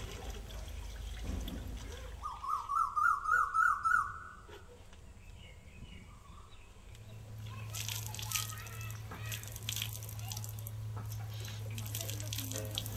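Water running and splashing at the tap of a rainwater storage tank as people wash. About two seconds in, a bird gives a quick series of about seven rising calls, the loudest sound. Later the splashing carries on over a low steady hum.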